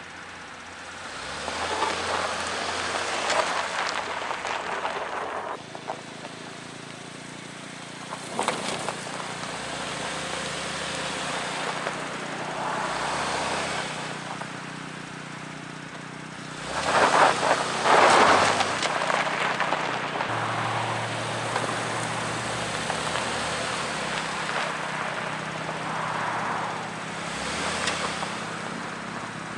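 Cadillac SRX AWD's V6 engine and tyres straining over loose off-road ground. There are repeated swells of gritty noise a few seconds long, with a few sharp clicks, over a low engine hum. The loudest swell comes a little past the middle.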